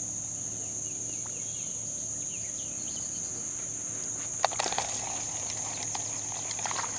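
A steady high-pitched insect chorus, with a few short bird chirps in the first seconds. About four and a half seconds in comes a sharp click, then a run of clicks and rattles as the pocket fisherman rod is picked up and handled.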